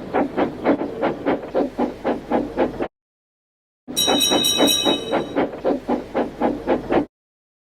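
Steam locomotive chuffing sound effect: quick, even exhaust puffs, about five a second. It cuts off, and after a second of silence starts again with a high whistle blowing for about a second and a half over the puffing.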